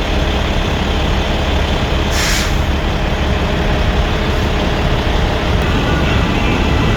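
Semi-truck noise: a steady low diesel rumble, with one short hiss of air about two seconds in.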